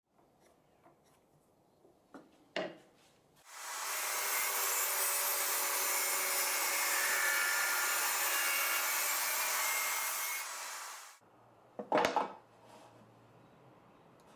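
Table saw ripping a strip of hardwood: a loud, even cutting noise starts abruptly about three and a half seconds in and cuts off sharply about eleven seconds in. Faint handling of the wood and a light tap come before it, and a couple of short wooden knocks come after.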